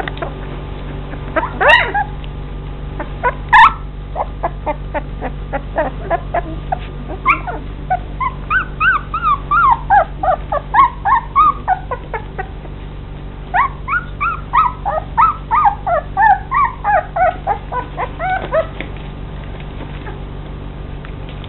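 Litter of 19-day-old Old English Sheepdog puppies whimpering and squeaking: many short, high, mostly falling calls that crowd together through the middle of the stretch, with two louder yelps in the first few seconds.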